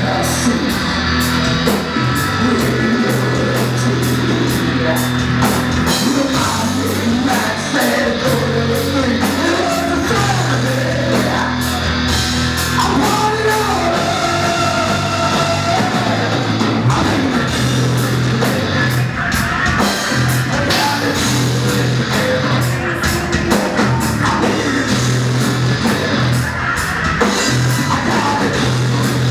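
Live hard rock band playing loud: distorted electric guitars, a bass line, a pounding drum kit and a singer.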